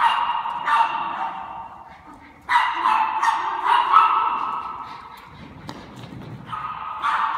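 Small dog barking in bursts of high-pitched yaps, each bark echoing in a large hall, with a lull of about two seconds before the barking resumes near the end.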